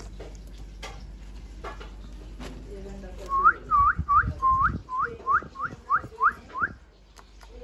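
A person whistling close to the microphone: a quick run of about ten short, clean whistles, each dipping and then rising in pitch, about three a second, after a few light clicks.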